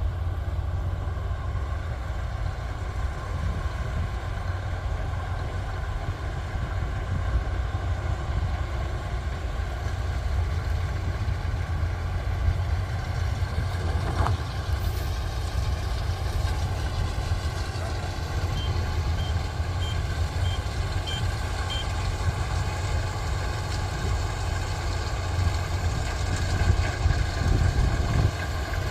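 Kubota combine harvester's diesel engine running steadily under load. A little past the middle comes a run of about six short high beeps, about two a second.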